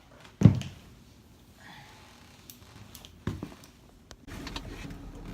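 Two dull thumps, the first about half a second in and louder, the second about three seconds later, with faint rustling between; a low steady rumble comes up near the end.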